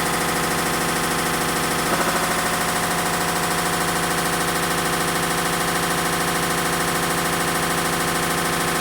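Hitachi Beat Wash washing machine running with a loud, fast, steady rattle during its spin cycle, the sign of a failing clutch. There is a brief louder jolt about two seconds in.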